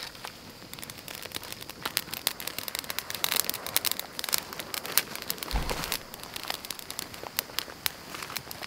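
Small wood campfire of dry twigs and kindling crackling and popping as the fresh sticks catch, with dense sharp pops in the middle and a single low thump a little past halfway.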